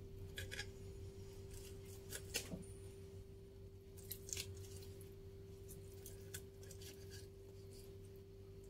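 Knife slicing boiled chicken gizzard and liver on a wooden cutting board: a few faint, scattered taps and clicks as the blade cuts through and meets the board, over a steady low hum.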